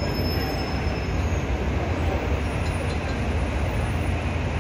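Steady street and light rail traffic noise: a continuous low rumble of buses, cars and light rail trains, with no distinct single event.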